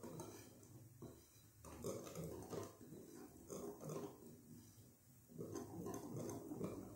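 Hand wire whisk stirring flour into a runny cocoa cake batter in a glass bowl: faint, soft squelching strokes repeating about once a second as the dry flour is worked in.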